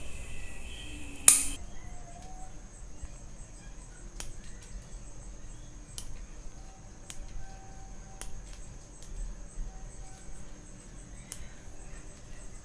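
Bonsai scissors snipping twigs on a Streblus asper (sandpaper tree) bonsai: one sharp cut about a second in, then lighter snips about once a second. A steady high-pitched whine sounds behind them.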